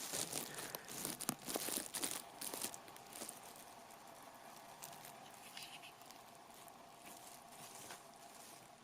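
Handling noise: rustling and scattered small clicks and knocks, busiest and loudest in the first three seconds, then fainter and sparser.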